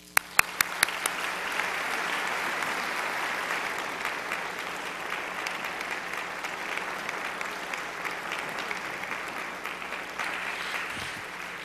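Audience applauding. A few separate loud claps come first, then it swells into steady applause that fades out at the end.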